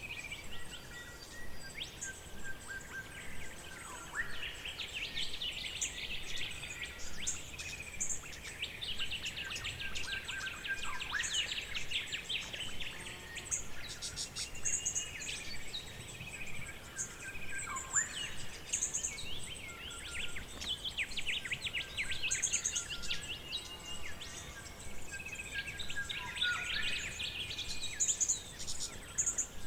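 Forest ambience with several birds singing and calling: repeated short chirps, fast trills and whistled notes overlapping, over a faint steady background hiss.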